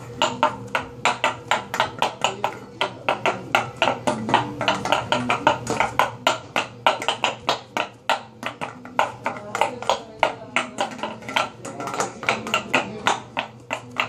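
A person making percussive noises: a fast, uneven rhythm of sharp clicks or taps, about four a second, with a faint steady hum underneath.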